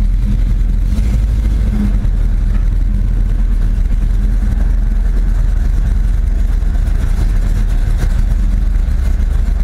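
1972 Pontiac Firebird driving at a steady speed: a constant low engine and road rumble that holds its pitch, with no revving.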